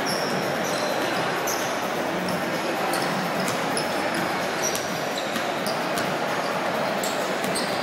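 Several basketballs bouncing irregularly on a hardwood court during a team's warm-up, with brief high sneaker squeaks, over the steady chatter of a crowd in a large hall.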